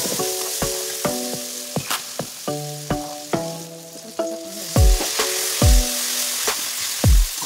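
Onion-tomato masala sizzling in hot oil in a steel kadhai as a spatula stirs it, under background music whose low beat grows much heavier about five seconds in.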